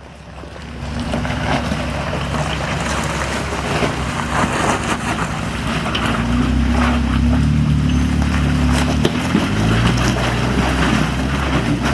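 Jeep engine revving under load as it climbs a rocky ledge, its pitch rising and falling as the driver works the throttle. It builds up about a second in.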